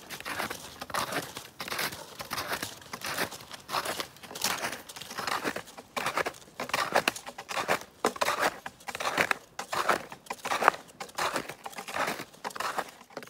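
Footsteps crunching through packed snow on snowshoes, a steady walking rhythm of about two crunchy steps a second.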